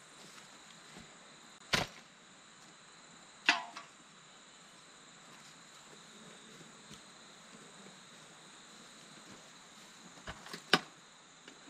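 Insects trilling steadily at a high pitch, with a few sharp knocks over it: one about two seconds in, another with a short ring a couple of seconds later, and two more close together near the end.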